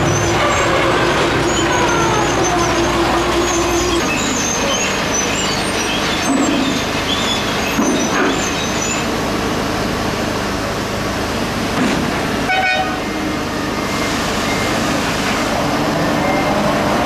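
Track-renewal train's engines and machinery running steadily as it moves slowly along the line, with a steady held tone for the first few seconds.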